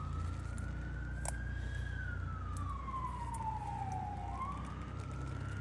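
Emergency vehicle siren wailing, its pitch slowly rising and falling, over a steady low hum, with a few small clicks.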